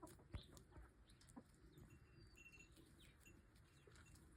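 Faint sounds of backyard poultry: chickens clucking softly, with a few short high chirps.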